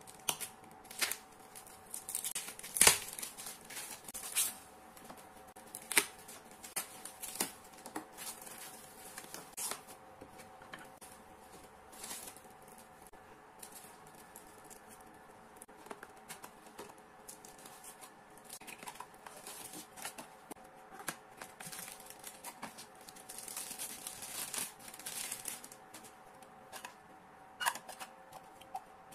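Plastic packaging and small boxes being handled on a desk: crinkling and tearing of a plastic mailer bag, with sharp taps and clicks at irregular intervals. A faint steady hum runs underneath.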